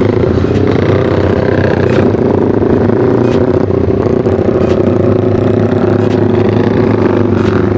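Bored-up Yamaha Vixion single-cylinder motorcycle engine pulling away and then running at a steady cruise. Its note rises a little in the first second, then holds steady.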